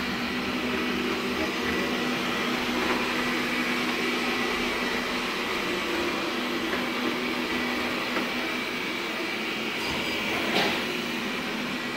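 Xiaomi vacuum cleaner running steadily on its first activation: an even rush of air over a steady hum, with a brief click about ten and a half seconds in.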